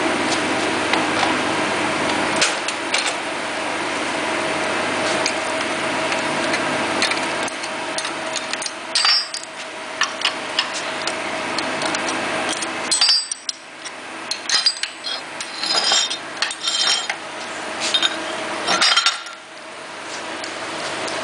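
Steady mechanical hum from running workshop equipment, with intermittent sharp metallic clinks and taps in the second half as metal parts are handled.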